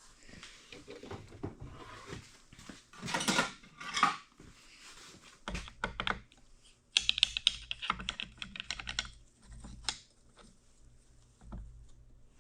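Hand tools clicking and clattering against a cast-iron gearbox while its top cover screws are worked loose, with a dense run of quick clicks about seven to nine seconds in.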